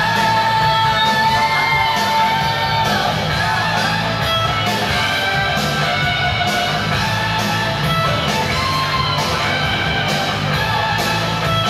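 Female vocalist singing an anime rock theme song into a microphone over loud band music with electric guitar, amplified through a PA. She holds one long high note for about the first three seconds, then the band plays on.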